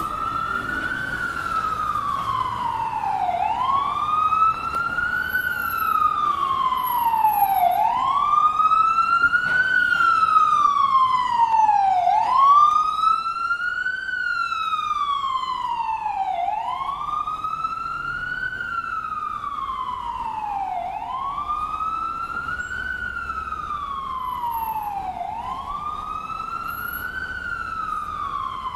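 Ambulance siren sounding a slow wail, rising and falling in pitch about every four and a half seconds. It grows louder toward the middle and then fades a little as the ambulance passes.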